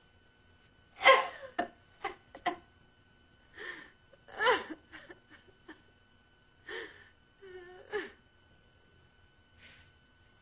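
A person gasping and sobbing in distress: a string of short, ragged cries and breaths with pauses between them, the loudest about a second in.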